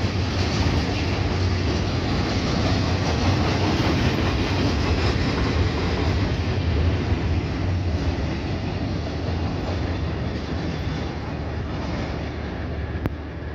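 Double-stack container freight cars rolling past on the rails: a steady rumble of wheels and cars that eases off gradually over the last few seconds.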